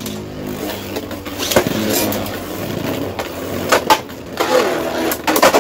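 Two Beyblade Burst tops, one of them Guilty Longinus on the all-metal Charge Metal Dash driver, spinning in a plastic stadium: a steady whirring, broken by sharp clacks as the tops collide, several single hits and a quick cluster near the end.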